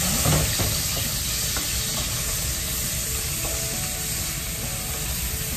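Food sizzling in hot cooking oil in a wok while a wooden spatula stirs it, with a steady hiss and a few light spatula clicks near the start.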